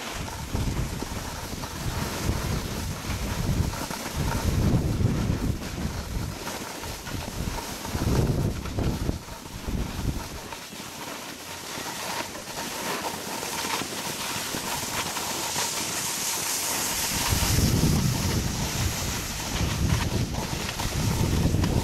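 Wind buffeting the microphone of a camera moving down a ski slope, in uneven low gusts, over a steady hiss of sliding on snow that swells past the middle.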